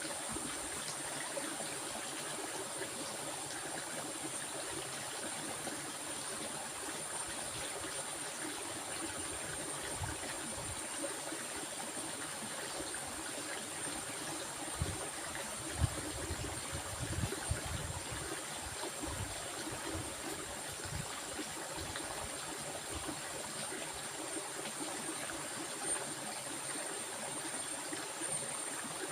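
Stream water running steadily, an even continuous rush, with a thin steady high tone above it. A few soft low thumps come about halfway through.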